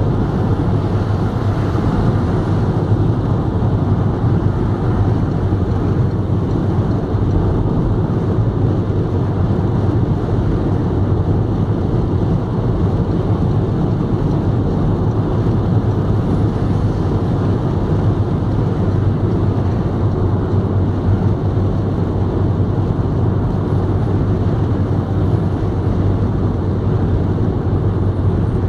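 Steady road noise heard inside a car's cabin while driving at motorway speed: tyre and engine hum with wind, unchanging throughout.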